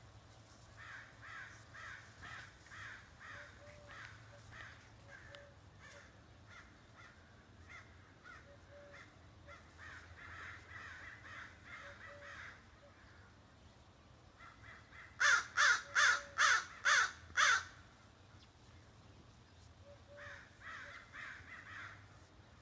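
Crow making sneeze-like calls: runs of soft, quick repeated calls, then, about two-thirds of the way through, six loud, sharp calls in a row, about two a second.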